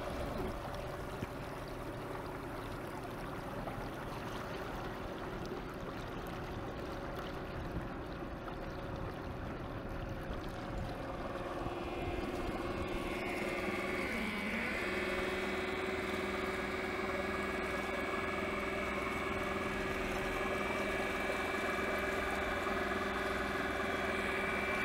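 A 2,000-watt e-bike motor in an old Sears outboard shell, driving a small boat: a steady electric whine over the rush and splash of water. About halfway through the whine gets louder, dips briefly in pitch and then holds steady.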